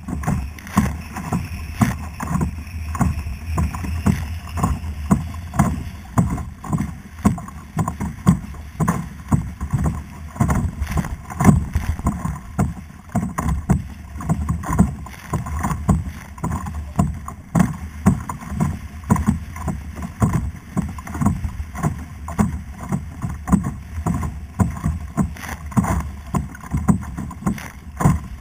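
Water sloshing and slapping irregularly against a kayak's hull, over a steady low rumble of wind on the microphone.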